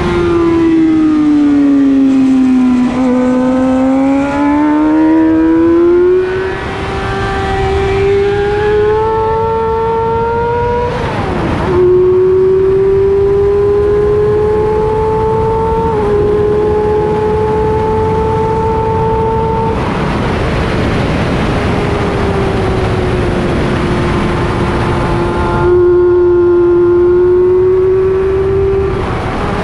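Race motorcycle engine heard onboard while lapping a track. The engine note falls as the bike slows, then climbs under acceleration, with a gear change about eleven seconds in and another a few seconds later. Heavy wind rush covers the engine for several seconds before the note comes back near the end.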